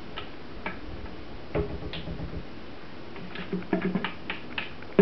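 Scattered light clicks and taps from a plastic bucket and its wire handle as cold-process soap batter is poured and scraped out into a loaf mould, more frequent in the second half.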